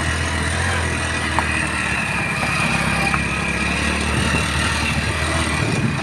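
Vehicle engine running steadily while driving over a rough dirt road, with road noise. A thin steady high tone runs through it, and the low engine drone eases slightly near the end.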